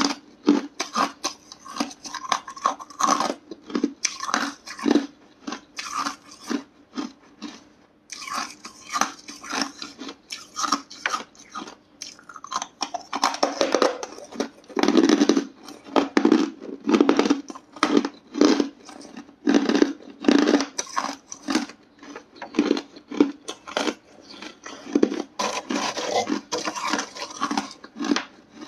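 Hard ice chunks being bitten and chewed close up: a dense run of sharp crunches and cracks in quick succession, with a brief pause about eight seconds in.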